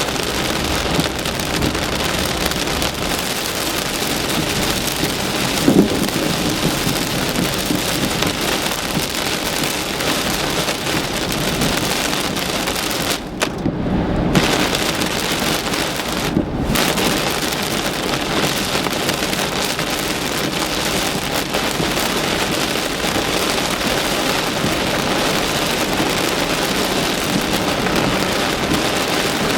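Heavy monsoon rain drumming on a moving car's roof and windshield, heard from inside the cabin as a steady loud hiss. The hiss briefly drops out twice, about thirteen and sixteen seconds in, and there is a short thump about six seconds in.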